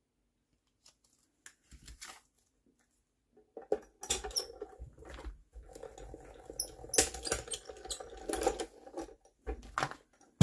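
A mini die-cutting and embossing machine being hand-cranked, feeding a plate sandwich with a small embossing folder and card square through. A few handling clicks come first, then from about four seconds in a dense rattling clatter over a low rumble for about six seconds, with a sharp click at the end.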